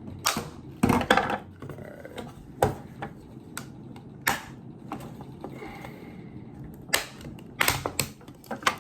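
Plastic casing of an Arctic Air neck cooler being forced and broken open: a string of sharp, irregularly spaced cracks and snaps, with short quieter stretches of scraping between them.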